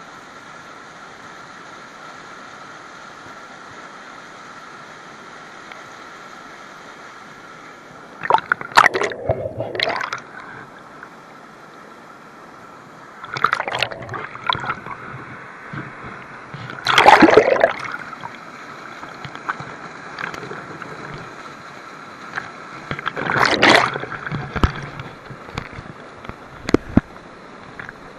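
Water sloshing and splashing in four short bouts over a steady background hiss.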